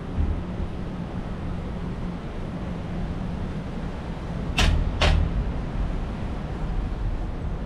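Steady low rumble of wind and road noise from a bicycle ride, with two sharp knocks about half a second apart a little past halfway through.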